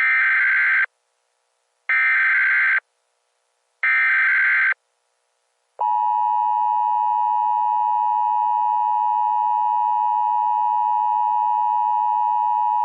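Emergency Alert System tones. First come three evenly spaced bursts of SAME header data, each just under a second long. About six seconds in, the steady two-tone attention signal (853 and 960 Hz together) begins and holds.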